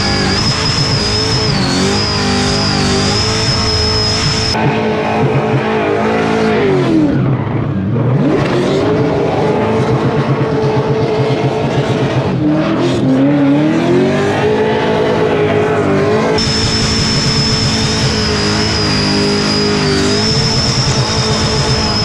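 Supercharged burnout-car engine held at high revs, with the revs dropping and climbing back twice, while the rear tyres spin and smoke.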